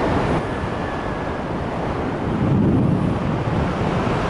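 Wind rushing over the microphone during paraglider flight: a steady, noisy rush, swelling a little about two and a half seconds in.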